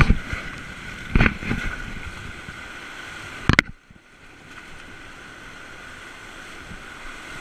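Rushing river water around a whitewater raft, with a few sharp knocks near the start and a louder one about three and a half seconds in, followed by a brief dip in sound.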